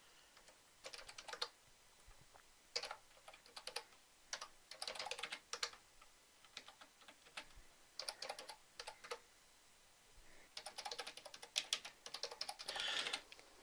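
Typing on a computer keyboard: short bursts of rapid keystrokes separated by pauses, with a longer run of typing near the end.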